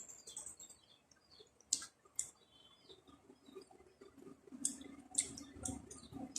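Close-up eating sounds: scattered sharp, wet clicks and smacks of a mouth chewing food, with a few faint bird chirps near the start.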